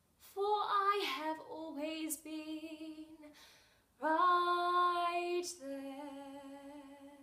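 A woman singing solo and unaccompanied: a phrase of moving notes, then after a short breath a long held note that drops to a lower held note and fades away.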